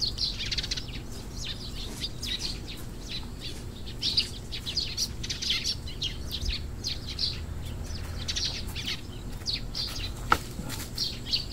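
Small birds chirping and twittering in quick high bursts, one after another, with a single sharp click near the end.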